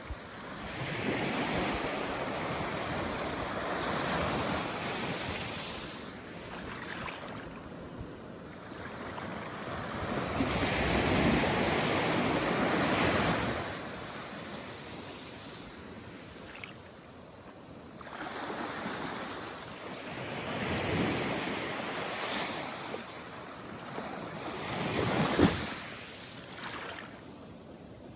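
Small Caribbean Sea waves washing in at the shoreline, each swelling and falling away over several seconds, with a sharper splash near the end.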